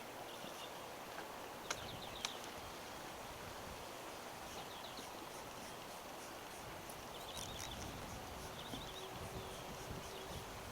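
Outdoor ambience: wind noise on the microphone, with small birds chirping in short repeated bursts. Two sharp clicks come about two seconds in, and a faint steady hum rises near the end.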